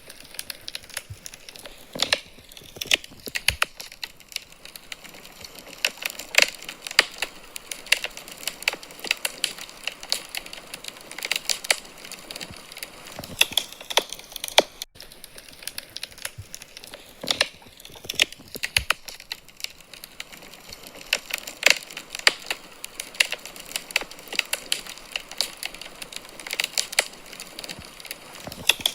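Wood fire burning in a fireplace, crackling steadily with many sharp, irregular pops and snaps over a soft hiss. The recording loops, repeating about every fifteen seconds.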